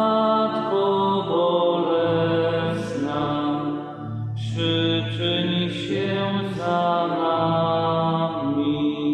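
Voices singing a slow church hymn in long held notes.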